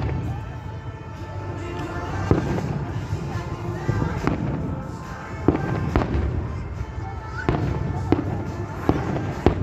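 Aerial firework shells bursting overhead in a series of sharp bangs, about eight of them spread across a few seconds, over a constant low background noise.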